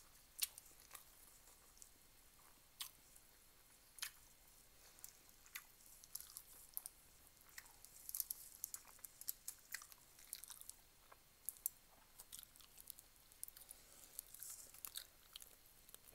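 A person chewing food close to the microphone: soft, wet mouth clicks and smacks, sparse at first and more frequent from about halfway through.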